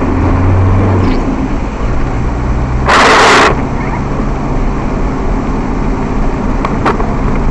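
Steady engine and road noise inside a moving car, picked up by a dashcam, with a brief loud rush of noise about three seconds in.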